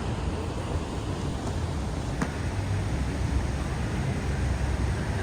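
Steady low rumble and hiss of vehicle noise, with no speech.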